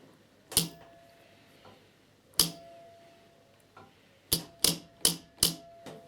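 Spot welder firing as a connecting strip is welded onto 18650 lithium cells: six sharp cracks, two spaced well apart, then four in quick succession near the end.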